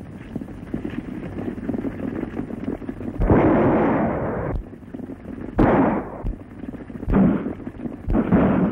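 Four gunshots on an old film soundtrack, each with an echoing tail; the first, about three seconds in, is the loudest and longest. Galloping horses' hoofbeats run underneath.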